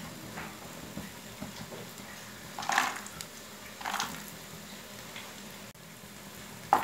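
Cashew nuts frying in warm ghee in a nonstick pan, with a faint steady sizzle and two short scraping stirring strokes, about three and four seconds in.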